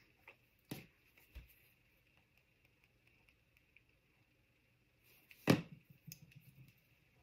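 Quiet handling of small craft tools on a paper-crafting work surface: a few light taps and clicks from tweezers and a plastic liquid-glue bottle, with one louder single knock about five and a half seconds in, likely the glue bottle being set down.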